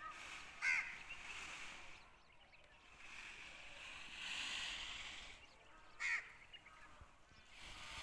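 Two short, loud bird calls, one just under a second in and another about six seconds in, over faint background noise.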